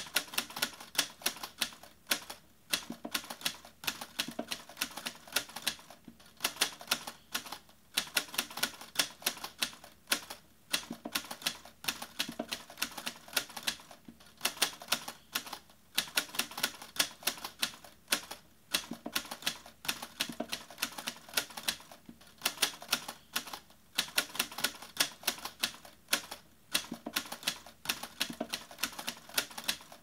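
Typewriter keys striking in quick, irregular runs of clacks, with short pauses every second or two.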